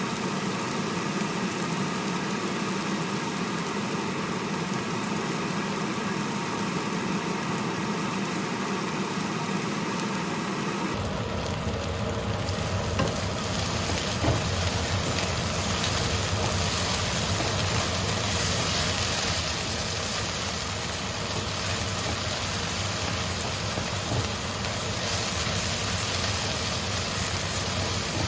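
Food sizzling as it fries in a pan under a steady hum like a range-hood fan. About eleven seconds in, the sound changes abruptly to a louder, brighter hiss of frying.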